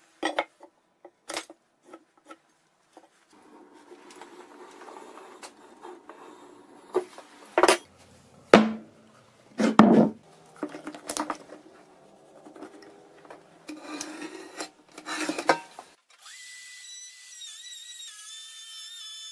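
Hand tools and a steel plate being worked on a plywood workbench: a few light clicks, then scratching as an outline is scribed onto the steel, broken by several sharp knocks of metal set down on the wood. About three seconds before the end a steady high whistling tone starts.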